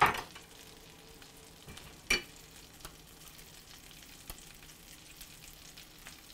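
Shrimp cakes frying in a non-stick skillet, giving a faint steady sizzle. Over it come sharp knocks of knife and spoon work on an avocado at a cutting board, the loudest right at the start and another about two seconds in.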